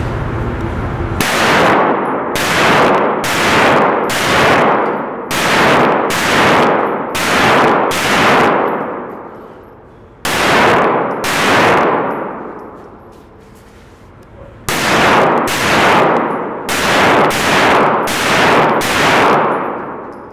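Gunfire in three strings: a fast run of about a dozen shots, a pause, two shots, then another quick run of about six. Each shot is followed by a long ringing clang.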